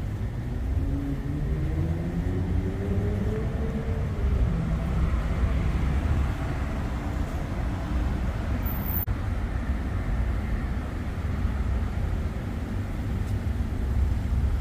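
An engine running with a steady low rumble; its pitch rises over the first four seconds as it speeds up, then settles.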